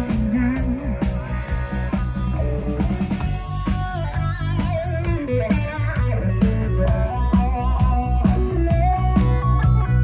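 Rock and roll band playing live through an instrumental passage. An electric guitar plays a lead line with bending notes over a steady drum kit and bass guitar.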